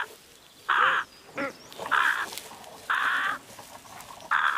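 Carrion crows cawing: four loud, harsh caws about a second apart, with a softer call between the first two.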